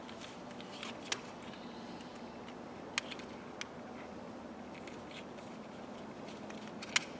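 Plastic shell of a Renault Megane 2 key card being pried open with a small tool: a few sharp clicks and snaps, the clearest about a second in, twice around three seconds, and near the end. A steady low hum runs underneath.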